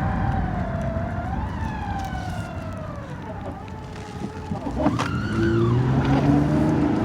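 2014 Dodge Challenger on the move with a whine from its failing transmission, falling slowly in pitch as the car slows. About five seconds in the whine sweeps sharply up, and the engine note then climbs steadily as the car picks up speed.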